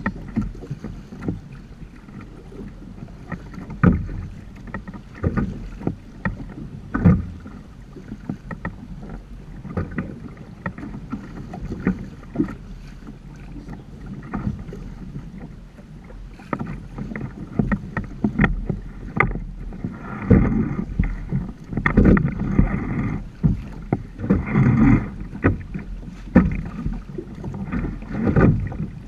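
Water splashing and slapping against the hulls of a Hobie Tandem Island sailing trimaran under way, with many irregular knocks. The splashing grows heavier and more frequent in the last third.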